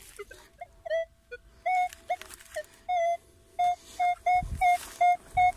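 Metal detector beeping over a metal target as its search coil is swept across the dug hole, each beep the same pitch. The beeps come faster and louder from about halfway through.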